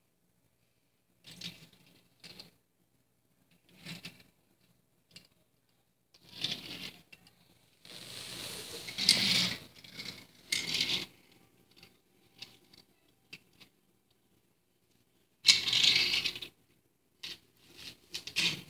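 Small toy cars handled on a hardwood floor: irregular clicks as they are set down and rolling scrapes as their wheels are pushed along, with a few longer, louder scrapes.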